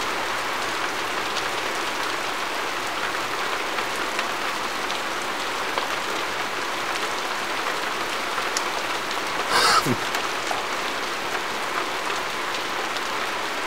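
Steady rain falling on a wet street pavement, an even hiss. One short falling sound, about half a second long, comes about ten seconds in.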